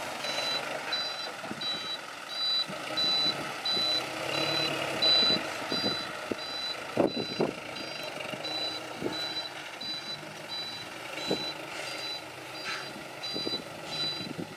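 A heavy vehicle's reversing alarm beeping steadily, a high beep repeating under twice a second, over running machinery, with a few sharp knocks about halfway through.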